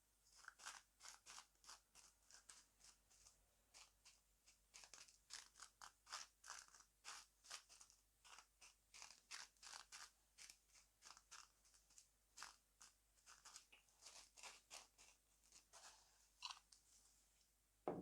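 Faint, soft crisp taps, two to three a second and a little irregular, of a sieve being tapped to dust powdered sugar over a baked apple pie.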